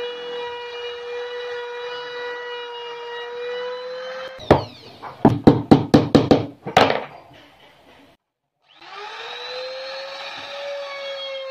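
An electric power tool's motor running with a steady high whine. It stops, and a quick run of about six sharp knocks follows. After a brief gap the motor spins back up, its whine rising in pitch and then holding steady.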